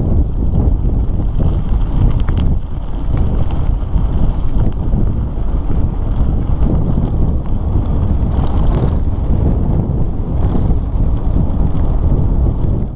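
Wind buffeting the microphone of a handlebar-mounted camera on a mountain bike riding a gravel road, a loud steady rumble mixed with the tyres' noise on the rough surface. A brief high squeak comes about two-thirds of the way through.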